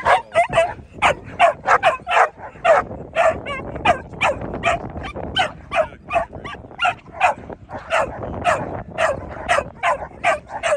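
American Pit Bull Terrier barking rapidly and repeatedly, about three sharp barks a second without a break.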